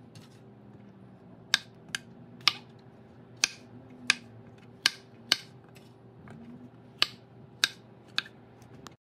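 Chef's knife chopping mushrooms on a wooden cutting board: about ten sharp, irregular chops, the blade knocking the board every half second to a second.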